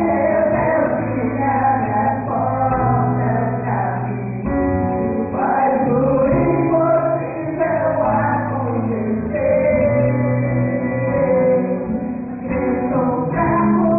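Gospel band playing a Christian song with sung vocals over held bass notes.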